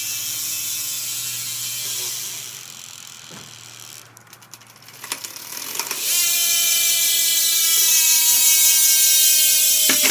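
Colony Wasp rear hub on a BMX bike freewheeling: the pawls ratchet in a fast buzzing tick as the wheel spins, a high-engagement hub. A first spin fades out over the first few seconds, and a second, louder spin starts about six seconds in, its tick slowly dropping as the wheel slows. The rider calls it not really loud because of the cold.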